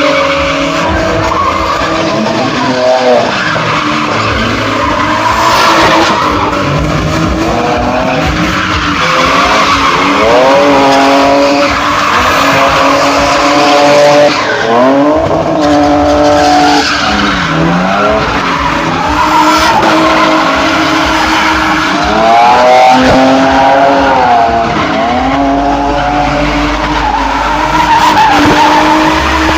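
Drift car engine revving up and down over and over, with tyres screeching as the car slides.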